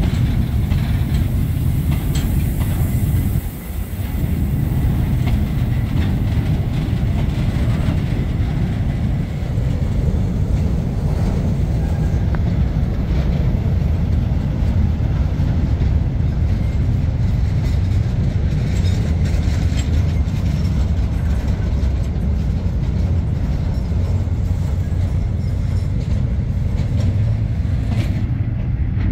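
Freight train's bogie container flat wagons rolling past on a curve, their steel wheels giving a steady loud rumble on the rails.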